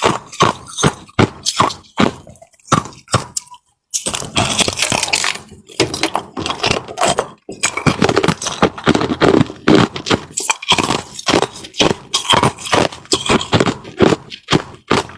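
Ice with a crisp frozen crust being bitten and crunched, a rapid run of loud crunches with a short pause about four seconds in.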